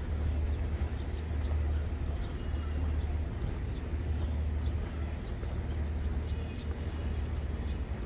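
Outdoor ambience: a steady low rumble with faint, short high chirps scattered throughout.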